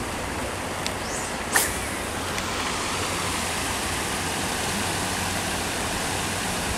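Steady rush of water spilling over a low stone weir into a pond, with a single sharp click about a second and a half in.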